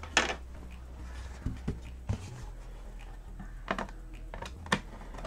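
Scattered light clicks and taps as a laptop's bottom cover is handled and set onto the chassis, the loudest about a quarter second in, over a low steady hum.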